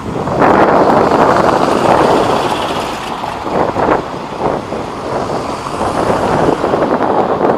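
Road traffic: cars passing on a cobbled street, a steady tyre-and-engine noise that eases about halfway through and builds again near the end.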